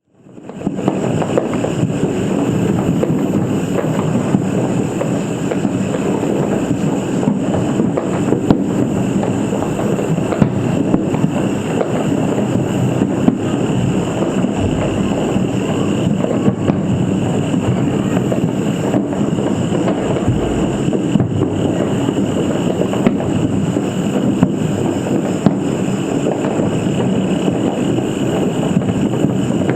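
Firecrackers and fireworks going off thick and fast, blurring into a steady rumbling crackle with many sharp cracks scattered through it. The sound fades in within the first second.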